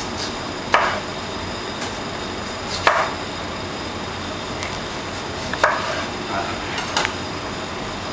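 A large kitchen knife slicing through a peeled potato and knocking down onto a plastic chopping board. There is a sharp knock every one to two seconds, four of them loud, over a steady background hiss.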